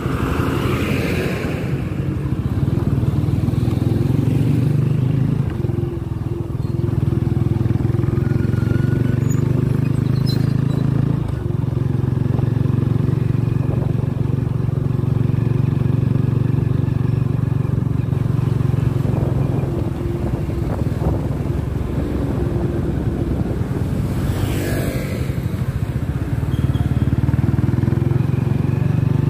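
Motorcycle engine running steadily at riding speed, a constant low drone that eases off briefly a few times. A short rush of noise comes near the end.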